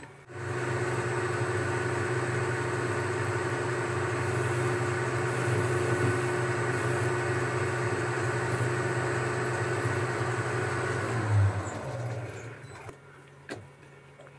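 Boxford metal lathe running steadily with a low hum and a thin whine. It starts just after the beginning and runs for about eleven seconds, then gives a short clunk and runs down to a stop.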